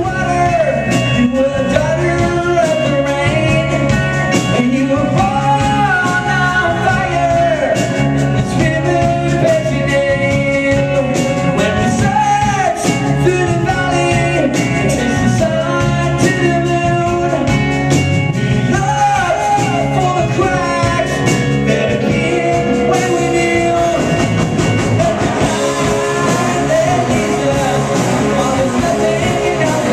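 Live rock band playing: distorted electric guitars over a full drum kit, at a steady loud level, with a melody line that bends in pitch.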